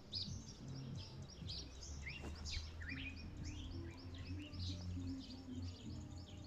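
A small bird chirping: rapid, high-pitched short chirps, several a second, with a few lower falling calls about two seconds in, over a low rumble.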